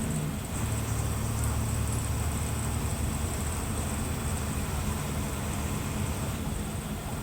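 Diesel engine of a Mercedes-Benz OF-1721 bus running steadily, with a low even drone.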